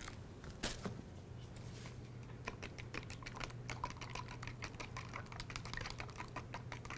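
Two eggs being beaten in a small glass bowl: the utensil taps against the glass in a fast run of light clicks, which grows dense and regular from about two seconds in.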